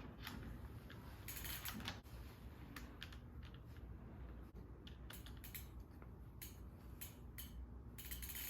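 Faint scattered metallic clicks and scrapes of bicycle saddle rails being fitted into the loosened saddle clamp on top of a RockShox Reverb AXS dropper seatpost.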